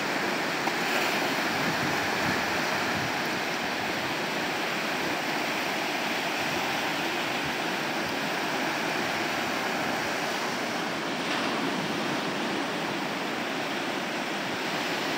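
Ocean surf breaking and washing up onto a sandy beach in a steady rush of noise.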